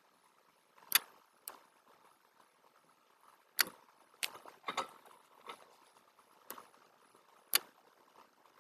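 Computer mouse button clicking: about eight sharp single clicks at irregular intervals over a faint steady hiss.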